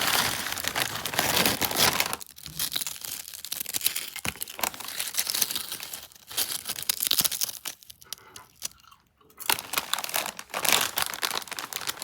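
Crinkling and tearing of a plastic chip bag, with crackly crunches of potato chips, in uneven bursts and a brief lull about eight seconds in.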